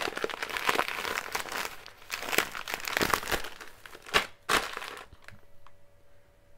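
A thin plastic shopping bag crinkling and rustling as a hand rummages in it and pulls out a plastic-packaged bag of hard candy, with a couple of sharper crackles about four seconds in. The rustling stops about five seconds in.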